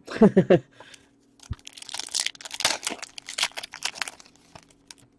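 Shiny plastic wrapper of a hockey card pack being torn open and crinkled by hand: a dense crackling from about a second and a half in to near the end. A brief voice sound comes at the very start.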